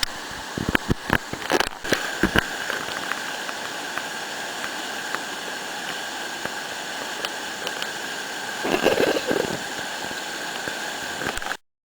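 River water flowing steadily, with a few sharp knocks in the first two seconds or so and a louder splashy burst about nine seconds in.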